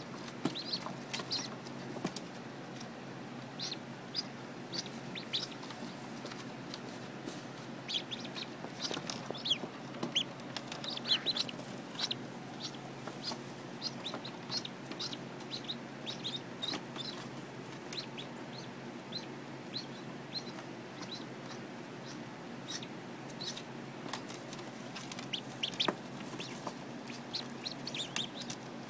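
Newly hatched chicks peeping: many short, high chirps, some in quick runs, over a steady low hum from the incubator.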